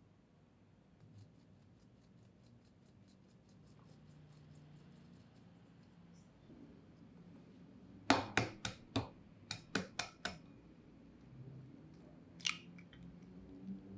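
Stainless-steel sieve sifting flour and cocoa into a glass bowl: a run of light quick ticks, about six a second, as it is shaken, then about eight sharp taps as it is knocked to clear the last powder. Near the end, a single sharp crack as an egg is struck on the glass bowl.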